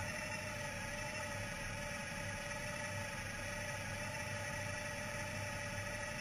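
Honda Gold Wing GL1800 flat-six engine idling steadily, with the bike standing still.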